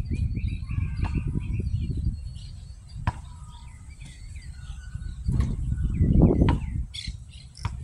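A basketball bouncing on an outdoor court, with sharp single knocks about three seconds in and a few more near the end as the ball is dribbled and shot at the hoop. Under them, wind rumbles on the microphone and birds chirp.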